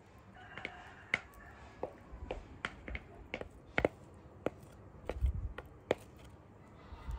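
Utensil scraping and tapping against a bowl while thick cake batter is scraped out into a ceramic baking dish: a string of sharp, irregular clicks with a few soft thuds of batter dropping.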